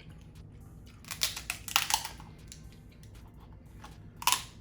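Crackling and clicking from handling and eating king crab and lobster close to the microphone: a cluster of sharp crackles about a second in, and one short burst near the end.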